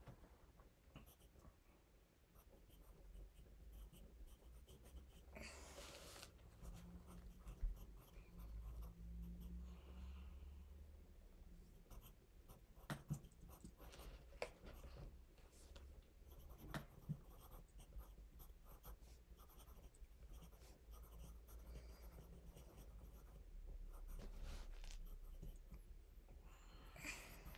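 Faint pencil scratching on notebook paper during handwriting, with a few sharp taps scattered through the middle.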